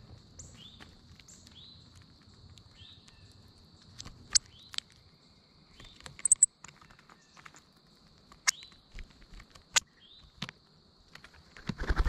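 Northern cardinals feeding on peanuts in the shell close to the microphone: scattered sharp clicks and taps of beaks on shells, with short high chip notes, over a steady high insect drone. Near the end a loud burst of wingbeats as a cardinal takes off.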